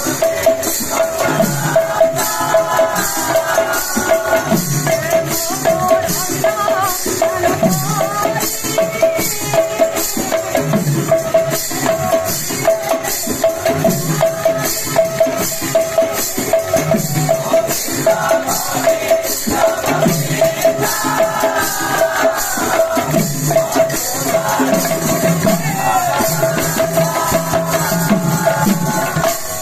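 Kirtan music: a khol, the barrel-shaped two-headed clay drum, played in a fast steady rhythm, with small brass hand cymbals ringing on the beat and a melody over it.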